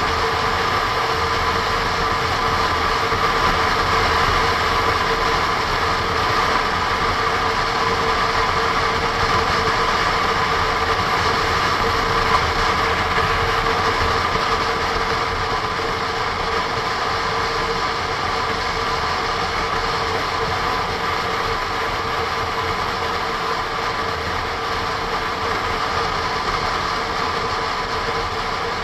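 Honda NC 750 S motorcycle's parallel-twin engine running steadily at cruising speed, mixed with wind rush on a bike-mounted action camera's microphone.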